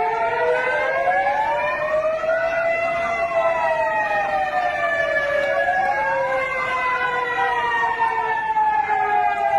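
At least two emergency vehicle sirens wailing together, their slow rising and falling sweeps overlapping out of step with each other.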